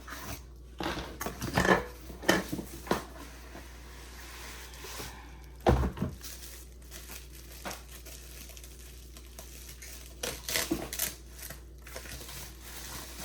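Packaging being handled and unwrapped: crinkling and rustling with scattered clicks, and a dull thump just before the middle.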